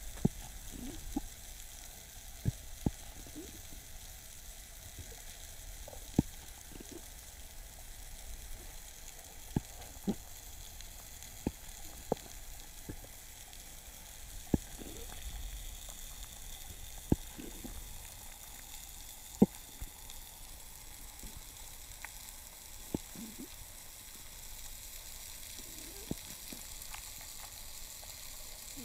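Underwater ambience: a steady watery hiss with sharp clicks at irregular intervals, one every second or two.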